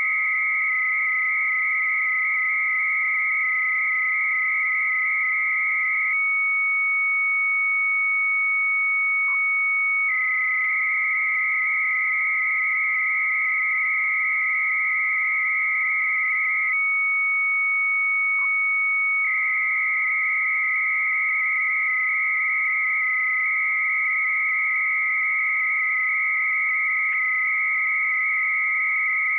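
Two Bell 103 300-baud modem carriers sounding together: a steady lower tone from the calling side, played by the Minimodem software, and a higher warbling tone from the answering modem as it sends BBS text. Twice the higher tone settles for a few seconds into one plain steady pitch while its data pauses, and the lower tone gives two brief blips as single keystrokes are sent.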